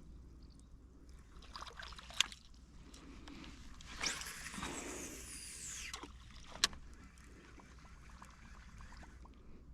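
Water splashing at the surface for about two seconds, starting sharply about four seconds in, typical of a wels catfish striking a topwater lure. Two sharp clicks come before and after the splash.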